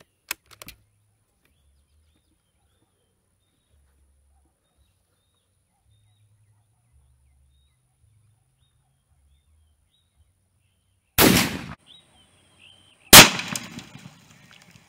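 Two rifle shots from a Finnish Mosin-Nagant M-28/30 in 7.62x54R. One report comes about eleven seconds in, and a sharper, louder one follows two seconds later, trailing off in echo. There are a few light clicks at the very start.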